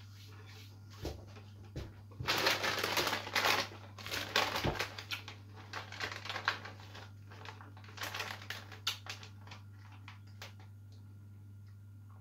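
Crunching of Takis Queso Volcano rolled corn tortilla chips being chewed, in loud crackly bursts about two to five seconds in and again briefly around eight seconds in, over a steady low hum.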